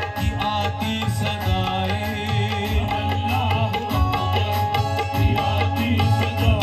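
Qawwali music: voices singing over tabla drumming, steady and unbroken.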